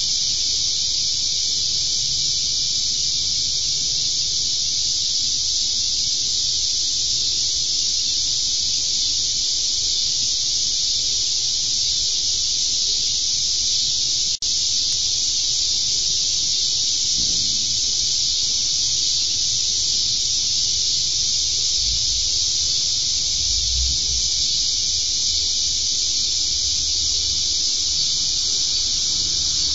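Steady, loud high-pitched hiss that cuts out for an instant about halfway through.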